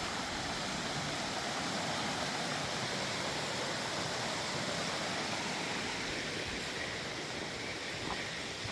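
Small creek waterfall pouring: a steady, even rush of water.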